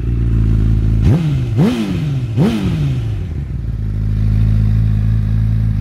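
2009 Honda CBR1000RR Fireblade's inline-four engine breathing through a Scorpion aftermarket exhaust, idling and blipped three times in quick succession about a second in. Each rev climbs sharply and falls back to a steady idle.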